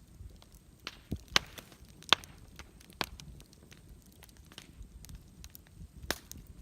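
Wood campfire crackling, with a handful of sharp, irregular pops over a low steady rumble of the flames.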